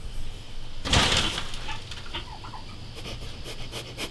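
Chickens and turkeys clucking softly, with a short rustle about a second in.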